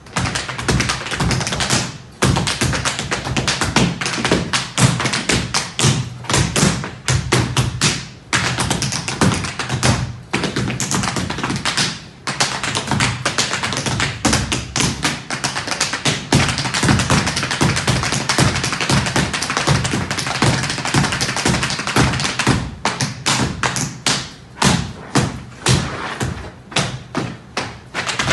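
Two tap dancers' tap shoes striking a wooden floor a cappella: fast, rhythmic tapping that breaks off briefly a few times. In the last few seconds it becomes sparser, with more spaced-out strikes.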